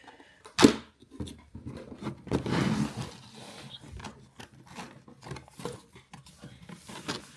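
Cardboard figure box being handled and opened: a sharp knock a little over half a second in, then a scraping rustle of cardboard around two and a half seconds, with scattered small clicks and taps.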